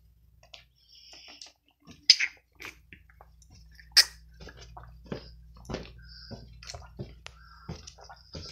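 Footsteps on stairs and the knocks and rubbing of a phone being carried: a run of short, uneven clicks, two sharp ones about 2 and 4 seconds in, then about two steps a second.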